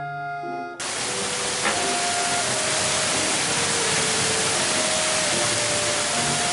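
Heavy rain pouring down, an even, loud hiss that cuts in suddenly about a second in.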